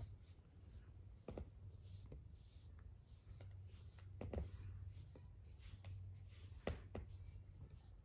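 A sleeping cat's faint snoring breaths over a low steady hum, with a few soft clicks now and then.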